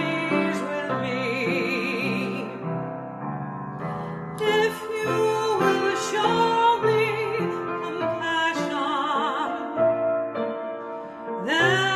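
A classical-style solo voice singing with wide vibrato over piano accompaniment, held notes above sustained chords.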